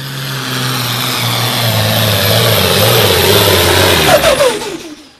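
Light super stock pulling tractor's engine running hard under load as it drags the sled down the track, growing louder. A little after four seconds the pitch falls away and the sound quickly fades out.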